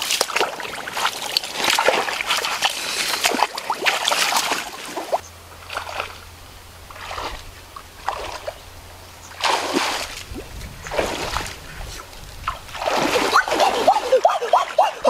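Muddy pond water splashing and sloshing in irregular bursts as a person wades and thrashes through it, with a few short high whines near the end.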